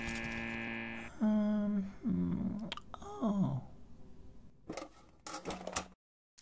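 A voice holding one steady hummed note for about a second, then a few falling, sliding moans, followed by a few faint clicks. The sound drops out to dead silence just before the end.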